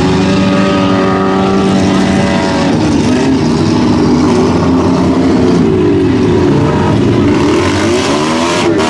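Several four- and six-cylinder enduro race cars running together around a dirt oval, their engines overlapping and rising and falling in pitch as they rev and pass.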